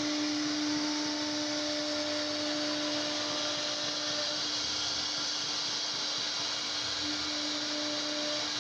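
CNC router spindle running while its bit cuts a curved groove into a wooden door panel: a steady whine at one pitch over an even hiss of cutting.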